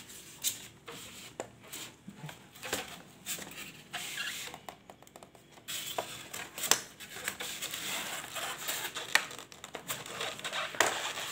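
Back cover of an ASUS R558U laptop being pried off by hand and with a metal tool: scraping and a string of sharp clicks and snaps as the cover works loose, with a few louder snaps toward the end.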